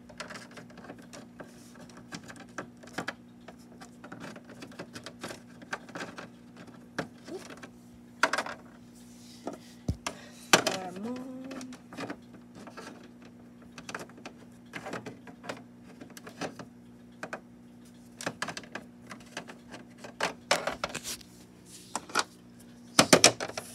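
Small plastic toy figures clicking and tapping on a hard plastic dollhouse floor as they are moved and set down by hand, in scattered irregular taps, over a steady low hum.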